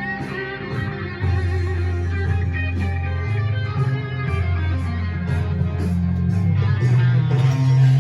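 Guitar-led music, with held bass notes that change every second or two and a steady beat.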